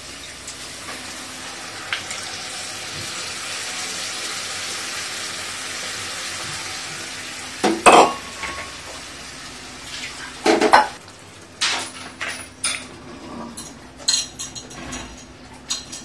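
Masala eggplant curry sizzling in a kadai after tamarind water has been poured into the hot oil: a steady hiss. From about halfway, a metal spoon knocks, scrapes and clinks against the pan and a steel bowl as the curry is stirred.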